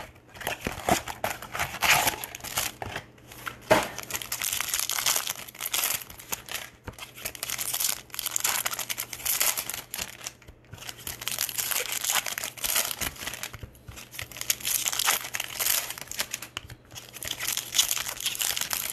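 Foil wrappers of 2020 Bowman baseball card packs crinkling and tearing as the packs are opened by hand, a nearly continuous crackle with a few brief pauses.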